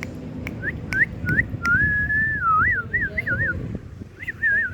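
A person whistling to call a puppy: a few short rising chirps, then a longer held whistle that wavers up and down, and another short warble near the end.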